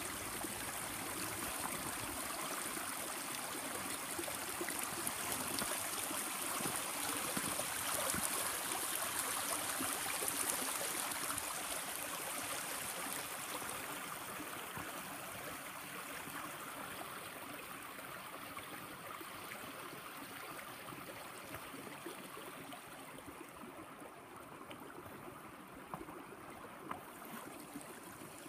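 Water pouring from a spout and running along a stone channel: a steady hiss of flowing water that slowly grows fainter over the second half.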